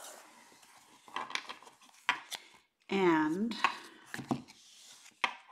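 A deck of tarot cards being taken out of its cardboard box and handled: a few scattered sharp taps and clicks of card stock and cardboard, with soft rustling between them.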